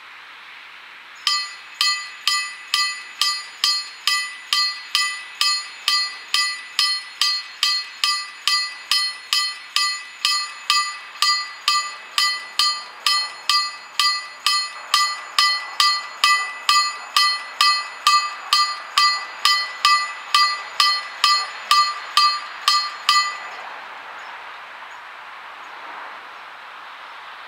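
Level-crossing warning bell (KLD-4013) of an SPR-1 ZWUS crossing system striking steadily at about two strikes a second while the gate arms lower: the crossing is closing for an approaching train. It starts about a second in and stops suddenly near the end, once the barriers are down.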